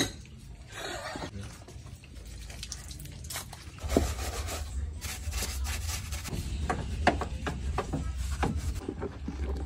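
Scraping and rubbing of a hand brush scrubbing grime off an engine, in scattered short strokes, with a steady low rumble underneath from about four seconds in.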